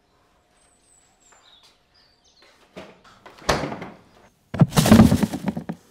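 Two loud household bangs about a second apart, the second a longer clattering rattle, after faint high bird chirps.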